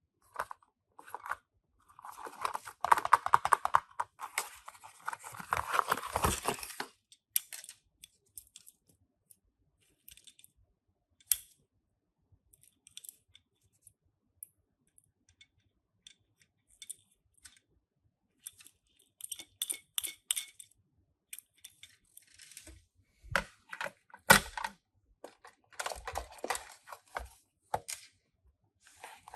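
Toy packaging being opened by hand: a dense crinkling and tearing rustle for a few seconds, then scattered small clicks and taps, with more bursts of rustling and knocks near the end.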